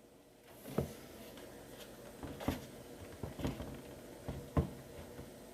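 A handful of light, scattered taps and clicks of hands handling a mixing desk, with quiet in between; the sharpest come about a second in and again near the end.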